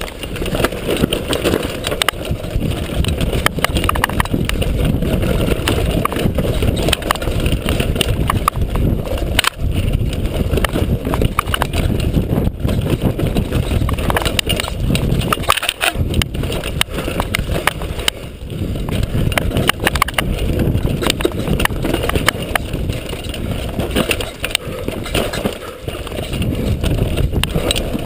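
Downhill mountain bike ridden fast over a rough dirt trail: a steady rush of wind on the microphone with constant rattling and knocking from the bike's tyres, chain and suspension over roots and bumps.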